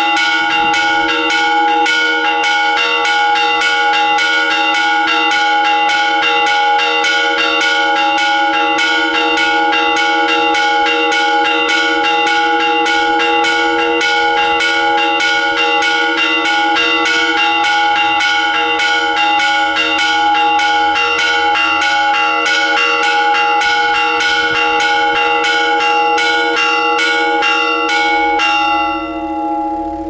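Church bells struck in a fast, steady peal of about three strokes a second, the tones building into a continuous ringing. The strokes stop near the end and the bells ring out.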